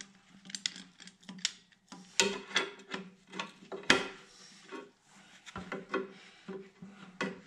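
Hand tool clicking and scraping on metal fittings at the tractor's coolant drain, in irregular short knocks and scrapes, over a faint steady hum.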